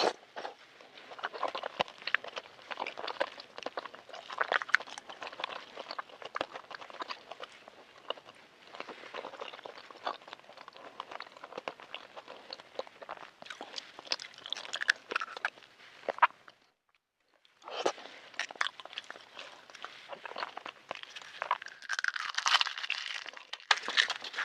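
Close-miked eating of a balut (fertilized duck egg): wet chewing and smacking with small crunches, dense and continuous, broken by a short silent gap about two-thirds of the way in.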